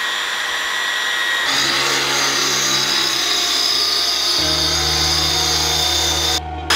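Hand-held electric power tool running steadily on the exhaust bolts under the car. Its tone shifts about a second and a half in and again a little past four seconds, and it cuts out briefly near the end.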